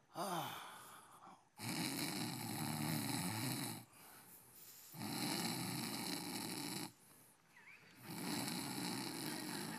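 A man snoring: three long snores about two seconds each, roughly three seconds apart.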